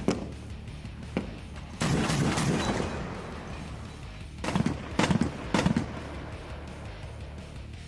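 Gunfire from a Stryker armoured vehicle's turret cannon: a single shot, then a short dense burst about two seconds in, then three or four sharp shots in quick succession past the middle.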